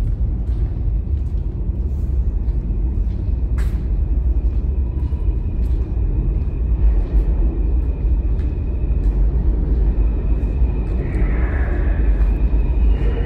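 Low, steady rumble of New York City subway trains running through the station's tunnels. A faint high steady tone joins about two seconds in, and a brighter hiss rises near the end.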